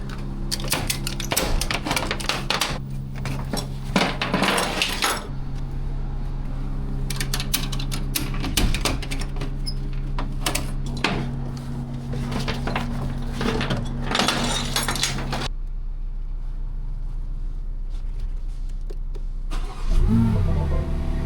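Vehicle engine running steadily, with stretches of noisy hiss over it and a rising note near the end.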